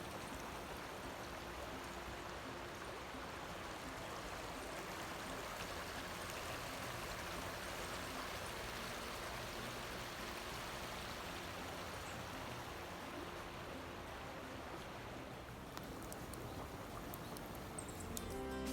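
Steady rush of flowing water, like a mountain stream.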